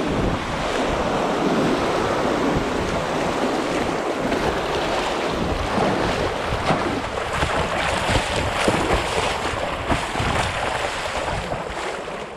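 Fast riffle water rushing and splashing against the bow of a Dagger Katana 10.4 hard-shell kayak as it runs through moving water, with sharper splashes in the second half.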